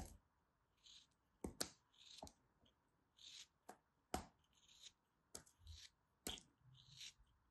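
Small craft-knife blade slicing through a moulded lump of kinetic sand: short, crisp scrapes at irregular intervals, with several sharp clicks among them.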